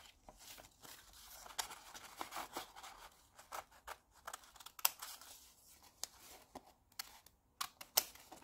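Small children's paper scissors snipping through white paper in short, irregular cuts, with the paper rustling as it is turned. A few snips are sharper than the rest.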